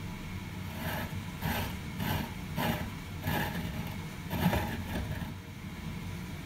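Handling noise of a rusted steel nut turned in the hand against the bolt in a vise: about six short scrapes or rubs, roughly one every half second, over a steady low hum.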